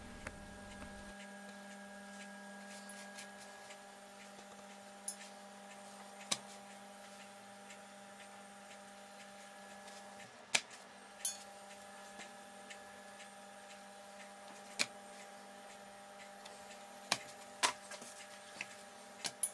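Faint steady hum with several fixed tones, broken by scattered light clicks and taps from corn tortillas being picked up and turned by hand in a dry nonstick frying pan.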